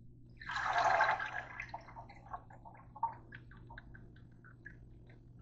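A short rush of water in a stainless steel sink, then a quick run of drips that thins out to scattered single drops: water draining off a plastic colander.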